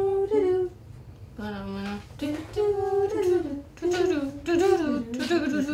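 A woman humming a wordless tune: a couple of held notes, a short pause about a second in, then a melody that slides up and down.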